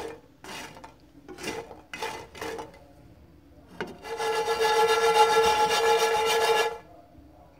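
Spatula scraping and stirring bread cubes in a nonstick frying pan, about two strokes a second. About four seconds in, the pan is moved on the stove, giving a loud, steady, pitched rasping grind for nearly three seconds that stops abruptly.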